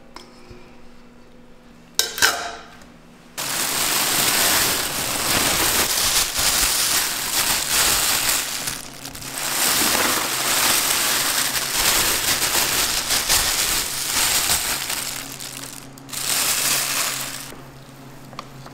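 A sharp clink about two seconds in, then loud crinkling and rustling of a clear plastic bag as ground beef is shaken out of it into a plastic food container, with a second shorter burst of rustling near the end.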